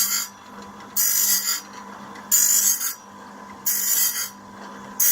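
Dack band sawmill blade sharpener at work: its grinding wheel grinds one tooth after another in a regular cycle, a harsh grinding hiss lasting about half a second roughly every 1.3 seconds as the blade is indexed, over the steady hum of the motor.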